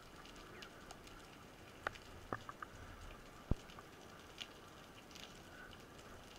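Faint underwater ambience heard through a camera housing: a low steady hiss with scattered sharp clicks and crackles. The sharpest click comes about three and a half seconds in.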